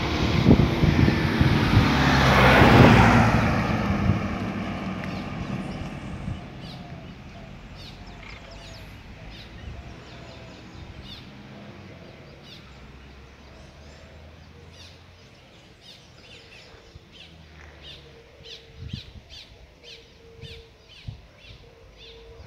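A motor vehicle passes, loudest about three seconds in and fading away over the next few seconds. After that, birds chirp in short, repeated calls.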